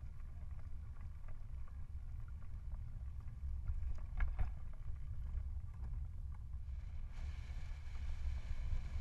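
Wind rumbling on the microphone and tyre and road noise from a tandem bicycle with a recumbent front seat rolling along a road, with a few light clicks about four seconds in. A steady hiss joins suddenly about seven seconds in.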